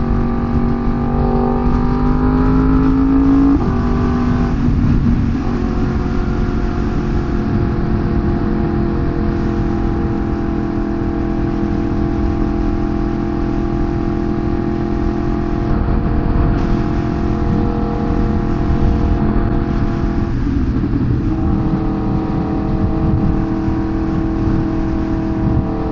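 Sportbike engine pulling up through the revs, dropping suddenly at a gear change about four seconds in, then holding steady cruising revs. The revs dip briefly about twenty seconds in and settle again.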